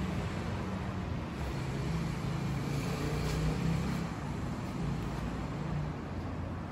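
Honda CBR1000RR-R Fireblade SP's inline four-cylinder engine idling steadily.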